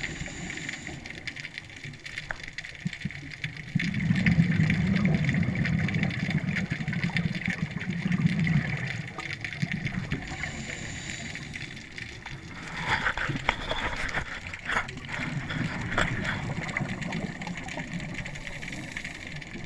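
Underwater scuba breathing through a regulator, with exhaled bubbles rising in deep rumbling surges a few seconds apart. A run of clicks and crackles comes near the middle.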